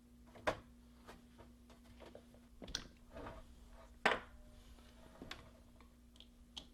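Scattered light clicks and knocks of monitor parts being handled and fitted back together, the two loudest about half a second and about four seconds in, over a faint steady hum.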